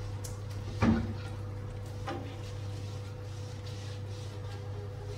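The glass front panel of a kitchen range hood being lifted and handled: a sharp clunk about a second in and a lighter knock around two seconds, over a steady low hum.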